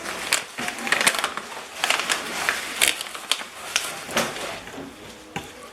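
A snack bag being opened and handled: a run of irregular, sharp crinkling crackles.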